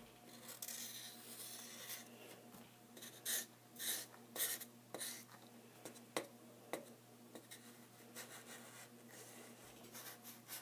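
Blue felt-tip marker drawing on paper: a string of short, faint strokes, louder about three to five seconds in, with a few light ticks between them.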